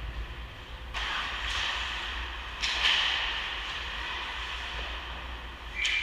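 Ice hockey skate blades scraping and carving the rink ice, with three sudden sharp scrapes about a second in, about two and a half seconds in and near the end, over a steady low hum.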